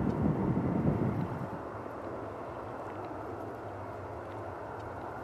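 Airbus A340-300's four CFM56 jet engines running at low taxi power as the airliner moves past: a loud low rumble fades over the first second and a half, then settles into a steady, quieter hum.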